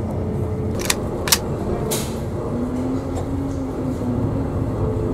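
Steady low rumble of a passenger ferry's engines heard on board, with a few sharp clicks around one and two seconds in.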